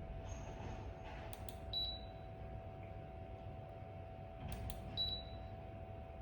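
Two faint clicks, each followed a moment later by a short high electronic beep, the pair repeating about three seconds apart, over a steady faint hum.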